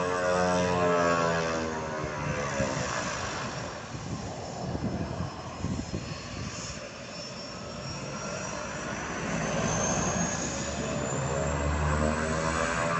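Thrush agricultural plane's turboprop engine at taxi power: a steady propeller drone with a thin high turbine whine. It fades in the middle as the plane swings round, then grows louder near the end as the plane faces the listener, while the whine rises in pitch.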